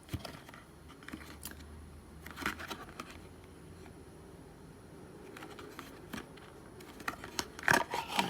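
Handling noise from a medicine bottle and its packaging: scattered light clicks and rustles, with a louder cluster of sharp clicks and knocks near the end.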